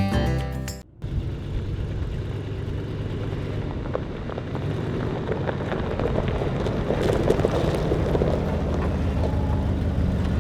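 Music stops abruptly about a second in, followed by a vehicle engine running steadily.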